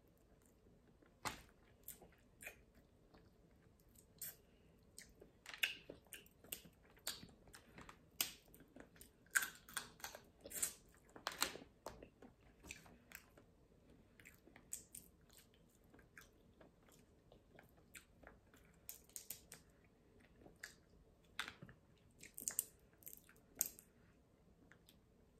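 A person eating Maryland blue crab: chewing and biting on crab meat, mixed with irregular sharp clicks and crackles of crab shell being picked apart by hand. The sounds come in quick clusters, with a sparser stretch in the middle.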